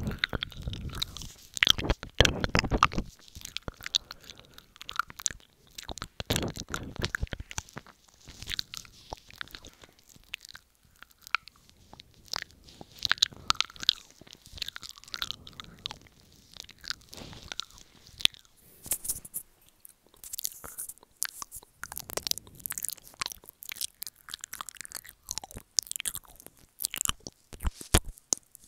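Wet ear-eating mouth sounds made with the lips right against a wired earbud microphone: irregular clusters of clicks and smacks, with a short lull about a third of the way in.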